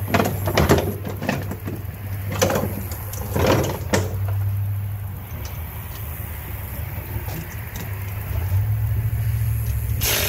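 Hand socket ratchet working on exhaust bolts: short runs of ratchet clicking and metal tool clinks against the engine in the first four seconds, then a louder clatter right at the end, over a steady low hum.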